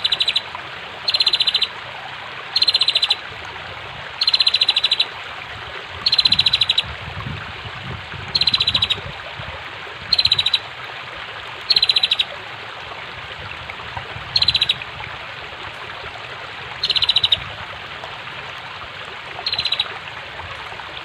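Female prinia (prenjak) calling: a rapid ticking trill in short bursts, repeated about ten times at intervals of one and a half to two and a half seconds. Under it runs the steady rush of flowing water.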